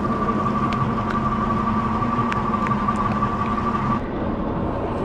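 Boat's outboard motor running at idle: a steady hum with a steady high whine. The whine and hiss drop away about four seconds in while the low hum carries on.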